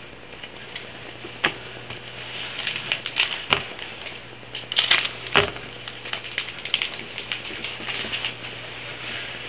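Trading-card pack wrappers crinkling and being torn open, with the cards handled: an irregular run of crackles and clicks, busiest a few seconds in.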